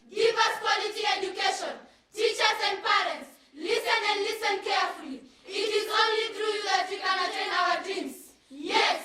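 A group of children singing unaccompanied in several short phrases, each separated by a brief pause.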